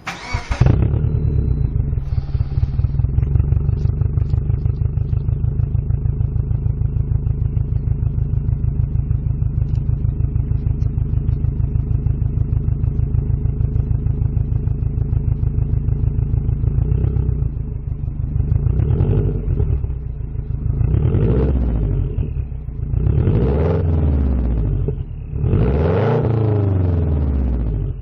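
Subaru Forester's 2.0-litre flat-four engine through a Ganador titanium muffler, idling steadily, then revved in four short blips from about two-thirds of the way through.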